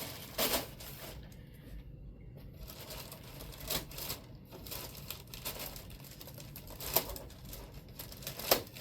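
Packaging being handled: crinkling and tearing of plastic and foam wrap, with a few sharp knocks and rustles spread through.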